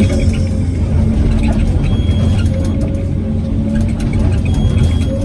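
Hyundai R850LC excavator's diesel engine running steadily under load, a constant low rumble with a steady hum above it.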